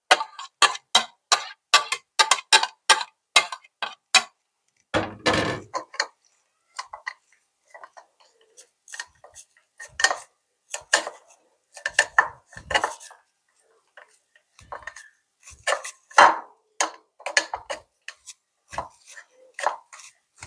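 A spoon clicks and scrapes grated ginger off a plate into a wire mesh strainer, then presses and scrapes the ginger pulp against the mesh over a bowl to squeeze out its juice. Quick clicks come first, and there is a heavier knock about five seconds in, followed by slower, scattered scrapes and taps.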